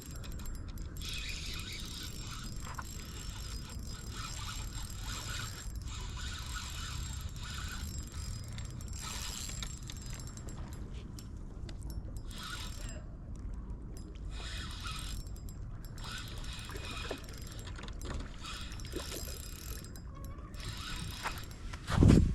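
Fishing reel being cranked to retrieve line, a steady clicking whirr of gears that pauses briefly a few times, over a low rumble of wind on the microphone. Heavier knocks start near the end.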